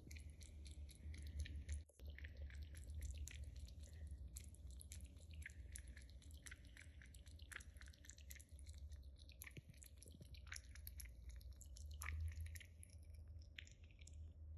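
Minuet kitten lapping water from a ceramic bowl: a quick, uneven run of small tongue clicks, close to the microphone, over a low steady hum.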